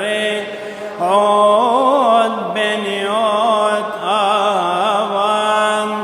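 A man chanting a long, melismatic line of a Coptic Arabic madih (praise hymn), the voice bending and wavering on drawn-out vowels, with a brief break about a second in.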